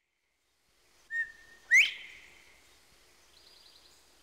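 A two-note whistle: a short level note, then about half a second later a loud note that sweeps sharply upward and trails off. A faint, rapid high trill follows near the end.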